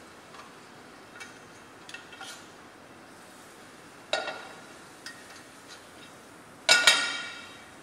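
Stainless steel saucepan and metal tongs clanking: a few light clicks, a ringing metal knock about four seconds in, then a louder double clang near the end that rings on for most of a second.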